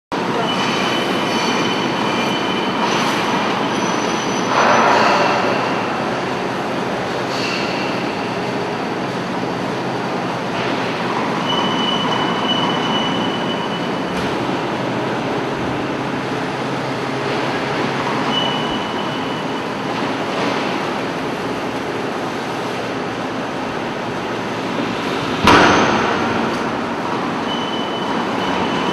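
Metal baling machine running as it compresses scrap steel wire: steady machine noise with a high squeal that comes and goes, and one sharp bang about 25 seconds in.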